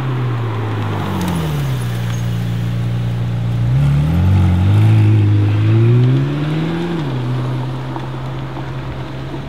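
McLaren 720S twin-turbo V8 running at low revs, then revving up hard about four seconds in as the car accelerates away, the pitch rising, dipping and rising again, before it drops back to a steady lower note near the end.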